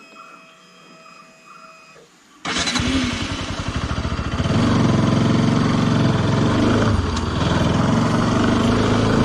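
Bajaj Pulsar RS200's single-cylinder engine starting about two and a half seconds in, idling briefly, then running louder and steady from about four and a half seconds as the bike pulls away.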